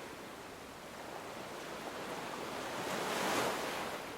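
Ocean surf washing in, steady, with one wave swelling louder about three seconds in and then easing off.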